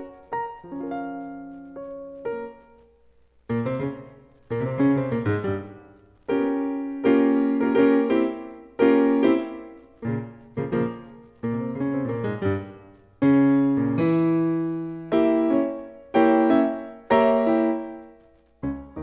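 Solo piano music: soft, sparse notes at first, then louder struck chords that fade after each strike from about three and a half seconds in.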